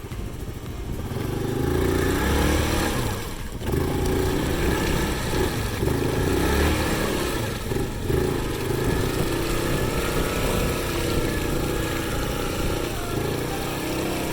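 Motorbike engine revving unevenly under heavy load as the bike labours slowly through deep mud.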